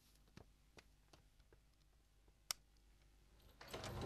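Near silence broken by a few faint, scattered clicks, with one sharper click past the middle. Near the end a louder rattle and clatter begins as a wooden door is unlatched and opened.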